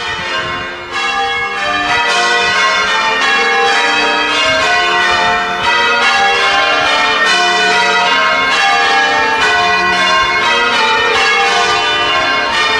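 Church bells being rung in changes: a quick, unbroken run of bell strokes, one after another, each tone ringing on over the next.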